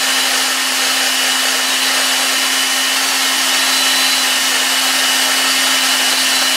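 Electric drill running at a steady speed, spinning an oiled model steam engine piston inside its brass cylinder to lap in a stiff bore. One constant tone holds under a steady hiss.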